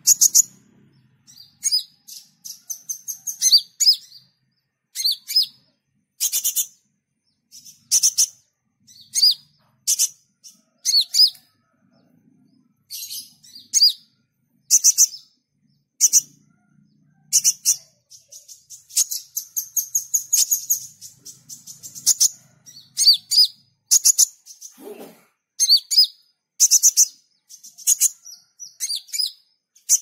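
Male Van Hasselt's sunbird (kolibri ninja) singing a loud, fast song of high, thin chirps and rattling trills in short bursts with brief pauses. Its song is packed with phrases copied from other birds, such as the cililin, rambatan and prenjak.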